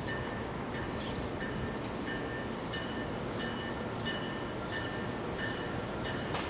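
A bell dinging in a steady, even rhythm, about three strokes every two seconds, over the low rumble of an NJ Transit multilevel train approaching the station.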